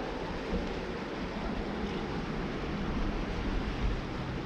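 Steady rushing of fast-flowing creek water, with wind rumbling on the microphone.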